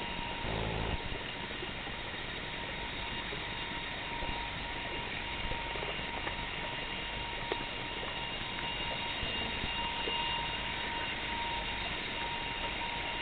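Steady background hiss and hum with two faint, constant high whines, and a brief low rumble about half a second in; no whale calls can be made out.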